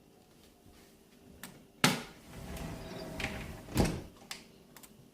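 Sliding door being worked on its track: a sharp knock, about two seconds of rolling rumble as the door slides, another knock, then a couple of light latch clicks.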